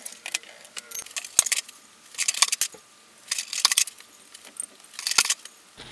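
Small steel valve-train parts (valve springs, retainers and keepers) from an M54B30 cylinder head clinking together as they are handled. There are a few sharp single clicks, then three bursts of metallic jingling, roughly a second and a half apart.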